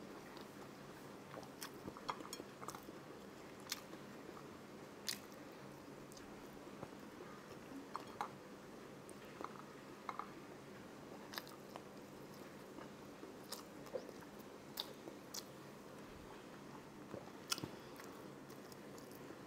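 A person chewing and eating food close to a clip-on microphone, with scattered short, sharp mouth clicks and smacks over a faint steady room hum.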